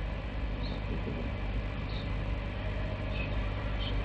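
Steady low rumble of a large prayer hall full of standing worshippers, with a few faint high chirps through it.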